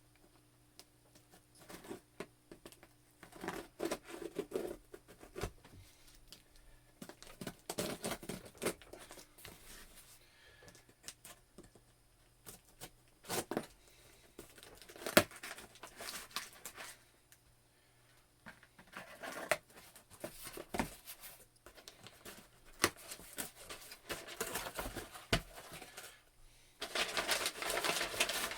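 A mailed package being opened by hand: irregular rustling, crinkling and tearing of the packaging with sharp clicks and taps. There are longer tearing stretches about two-thirds of the way in and again near the end.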